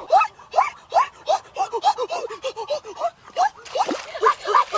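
Repeated short animal calls, each a quick rise and fall in pitch, a few a second, turning into several overlapping callers about three and a half seconds in.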